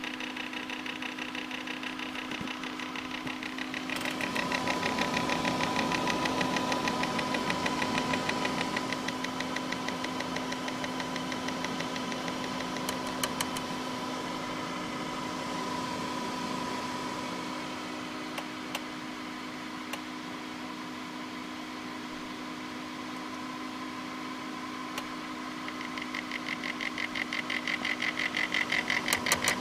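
Corsair H80 liquid cooler pump making a grinding noise over a steady hum. The grinding swells louder about four seconds in and again near the end. It is the sign of the pump failing two hours after install.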